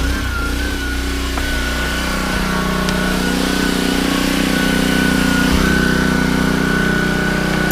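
Small gasoline engine of a pressure washer running steadily, with a steady high whine over it. The spray hiss stops at the start and the engine keeps running.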